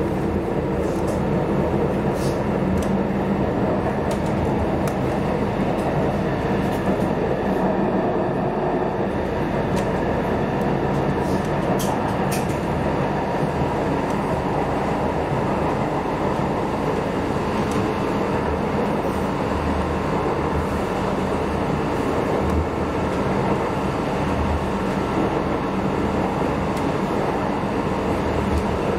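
Steady rumbling running noise of a moving vehicle, with a few sharp clicks in the first half.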